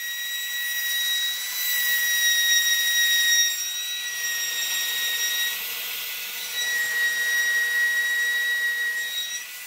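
Router spindle of a homemade CNC machine carving a pine board: a steady high whine over the hiss of the bit cutting wood, swelling louder twice as it cuts.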